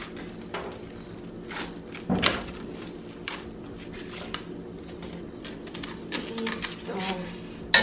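Plastic cling film crinkling and rustling in short bursts as a wrapped roll is pressed and rolled tight in it, with the sharpest crackle about two seconds in and another near the end.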